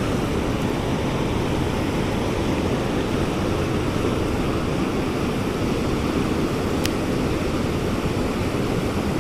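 Water spilling over a low stone dam and rushing downstream: a steady, unbroken rush of falling and flowing water. A single faint click comes about seven seconds in.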